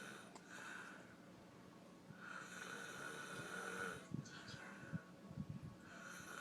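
A man snoring in his sleep: a long snoring breath about two seconds in, then a few short low rattling pulses, and another long breath starting near the end.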